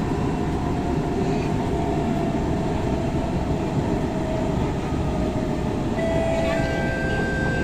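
Interior of an SMRT C151 metro train in motion: a steady low rumble of wheels and running gear with a faint whine. About six seconds in, a couple of steady higher tones come in over it.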